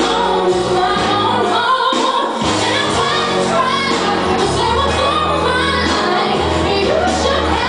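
A solo voice singing a pop ballad over backing music with steady bass notes, amplified through a club sound system.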